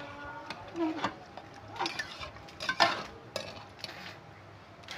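Metal ladle stirring rice in water in an aluminium pot, scraping and knocking against the pot a few times, with the loudest knock a little under three seconds in.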